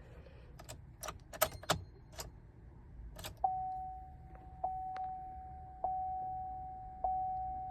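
Keys jangling and a few sharp clicks as the ignition key is handled and turned. Then, about three and a half seconds in, the Chevrolet Silverado's warning chime starts, one fading ding about every 1.2 seconds. The ignition is on but the starter does not crank, because the starter kill switch is active.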